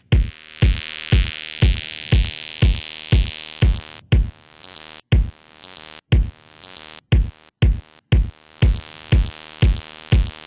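Electronic jam played on the Thor synthesizer in Reason: a drum-machine kick on every beat, about twice a second, under a sustained synth chord. The chord brightens over the first second or so as its filter is swept open. The whole mix cuts out abruptly for short moments several times in the middle.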